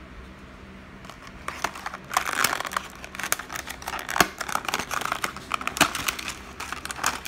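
Clear plastic blister pack being prised and torn off the cardboard backing card of a 1/64 diecast car: crinkling, crackling plastic with sharp snaps, starting about a second and a half in and stopping just before the end.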